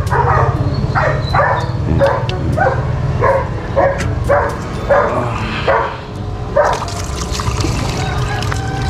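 Dogs barking, noisy and repeated at about two barks a second, stopping about two-thirds of the way through.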